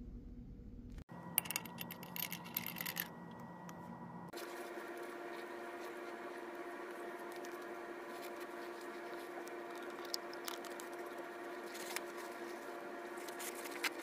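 Scattered light clicks and scrapes for the first few seconds, then a steady hum of several constant tones holding unchanged to the end.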